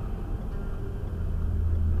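Low, steady rumble of engine and road noise inside a moving Renault Mégane RS, growing slightly louder near the end.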